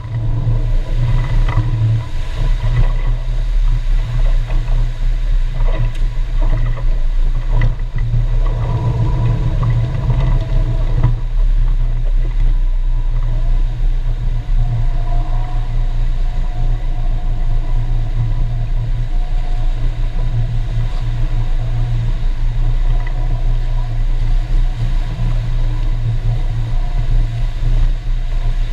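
A motorboat engine runs steadily at low speed, a constant low drone that holds throughout.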